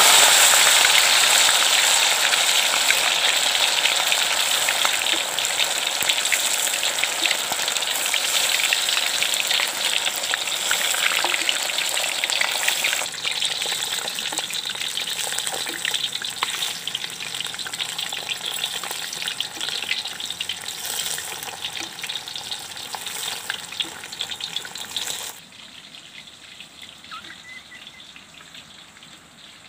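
Whole tilapia deep-frying in hot oil in a steel wok: dense, loud sizzling and crackling that eases gradually, then drops to a fainter sizzle near the end.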